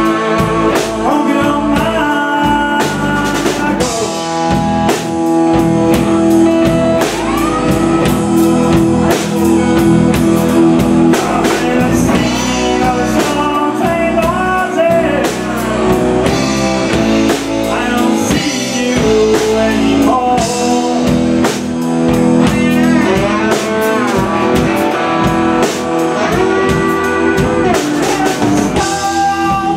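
Live blues-rock band playing: a male lead vocal over electric guitars, bass guitar and a drum kit.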